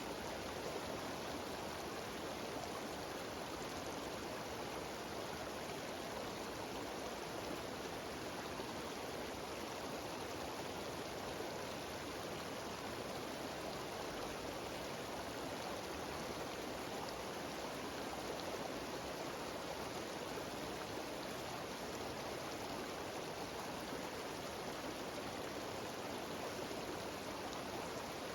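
Steady rush of a cascading mountain stream and small waterfalls, constant throughout.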